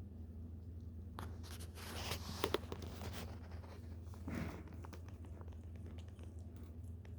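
A puppy hiccuping, heard as short, soft jerks: two sharp clicks about two and a half seconds in and another soft hiccup nearly two seconds later. These come amid a couple of seconds of rustling as the puppy shifts on its bedding, over a steady low hum.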